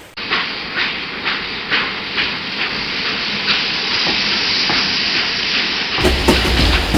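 Steam locomotive chuffing: a steady hiss with regular exhaust puffs about two a second. About six seconds in it cuts suddenly to another train running, with a deep rumble and clacking.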